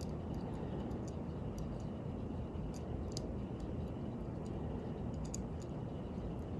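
Faint, scattered small clicks of fine watchmaker's tools against the parts of a watch movement, a few a second at most, over a steady low hum.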